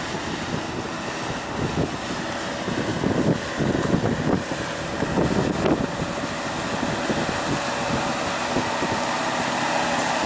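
Jeep Wrangler JK Rubicon's engine running at low speed as it crawls up a rocky hill, getting steadier and a little louder near the end as it comes closer. Wind buffets the microphone.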